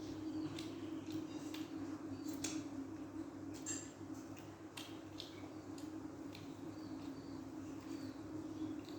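A child eating: scattered wet chewing smacks and short clicks of mouth and spoon, over a steady low hum.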